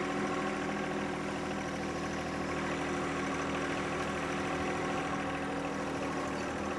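John Deere subcompact tractor's three-cylinder diesel engine running steadily at a constant speed while it tows a box blade through wet soil.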